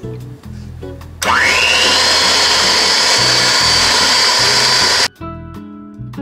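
Electric hand mixer switched on about a second in, its motor whining up to speed and then running steadily as its beaters whip a cream cheese filling. It cuts off abruptly near the end. Background music plays throughout.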